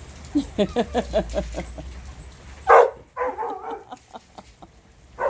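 Dog vocalizing: a rapid run of short, pitched whining grumbles, then one loud bark about halfway through, followed by more wavering whines.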